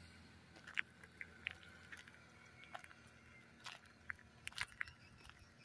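Faint, irregular clicks and ticks, about a dozen, some sharper than others.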